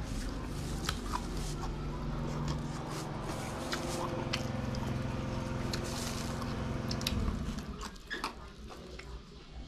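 Close-up eating sounds: chewing and small wet mouth clicks, with light taps and crinkles as fingers gather rice off a plastic sheet. A steady low hum sits underneath and stops about seven and a half seconds in.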